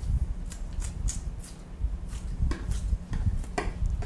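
Light clicks and knocks of a knife and fish being handled on a cutting board while a tuna is cut into loins, about half a dozen spread over a few seconds.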